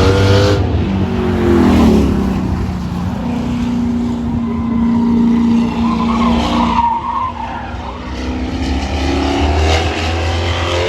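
Drag race cars running hard down the strip, engines at high revs with tyre squeal from wheelspin; the engine pitch drops about two seconds in, holds steady, then climbs again near the end.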